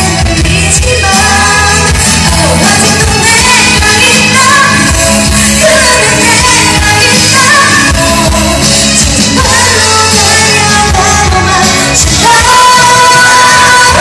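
A female pop singer singing live into a microphone over musical accompaniment, loud through a large hall's PA.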